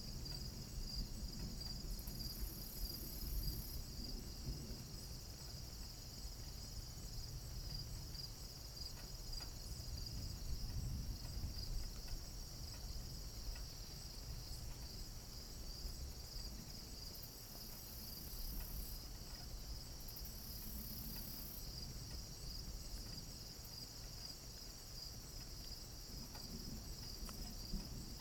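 Crickets chirping steadily in a fast, pulsing trill, over a low rumbling noise.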